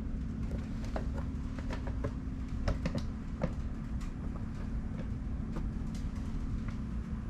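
Honda ADV150 scooter engine idling steadily, with scattered light clicks and ticks.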